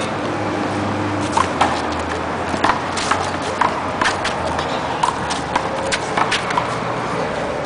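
One-wall handball rally: a string of about a dozen sharp, irregular slaps and pops, starting about a second and a half in, as the small rubber ball is struck by hand and rebounds off the concrete wall and court. Mixed with the patter of sneakers on the asphalt.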